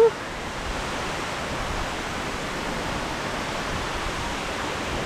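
Steady rush of falling water from a tall waterfall, Ramboda Falls, heard close by as an even, unchanging roar of noise.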